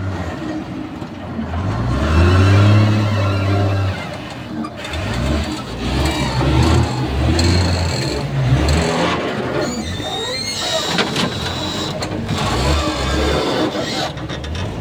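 A vehicle engine running and revving up and down several times, loudest about two to four seconds in, with a brief high squeal about ten seconds in.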